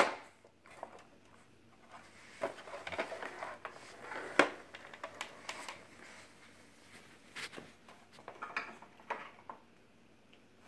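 Scattered light clicks and knocks of plastic toys being handled.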